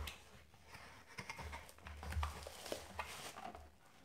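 Faint handling noise: a cardboard box and a bubble-wrapped case being moved about, with light rustles, small taps and a few dull bumps.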